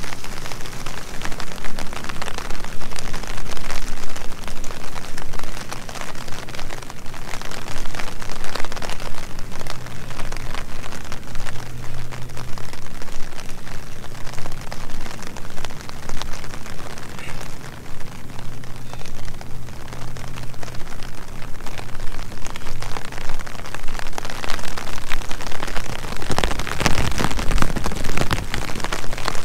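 Steady rain falling, a dense patter of drops, with a louder rush of noise lasting a couple of seconds near the end.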